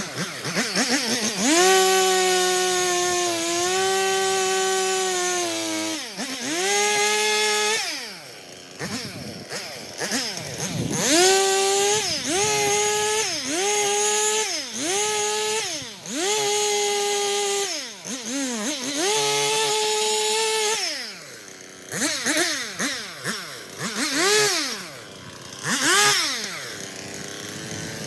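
Stihl two-stroke chainsaw revved again and again to full throttle and back to idle, held at speed for a second or two each time as it makes a series of short cuts. Near the end it gets quick, short blips of throttle.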